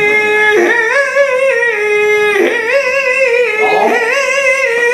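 A male flamenco singer's voice holding a long wordless melisma in a colombianas: high sustained notes that step and waver in pitch in ornamented turns, broken by short breaths.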